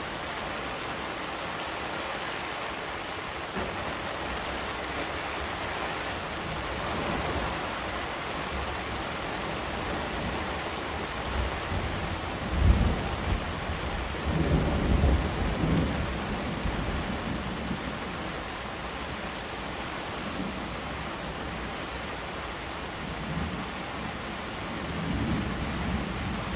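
Steady rain falling, with low rolls of thunder about halfway through and again near the end.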